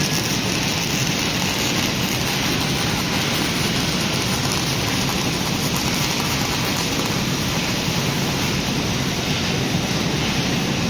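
Robotic welding arc on steel, crackling steadily without a break.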